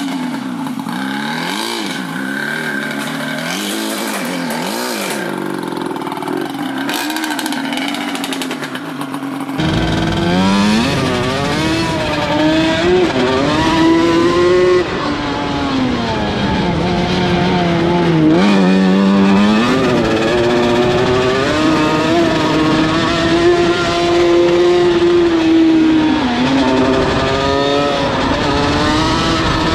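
Yamaha Banshee twin-cylinder two-stroke engine in a riding lawn mower, revving up and down as it is driven. For the first ten seconds or so it is heard from some distance; then it is heard close up from the seat, louder.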